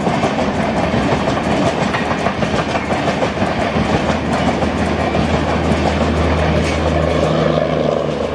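Passenger coaches passing at speed, their wheels clattering steadily over the rails. From about halfway through, a steady low hum joins and grows louder: the diesel generator of the luggage, brake and generator car at the tail of the train.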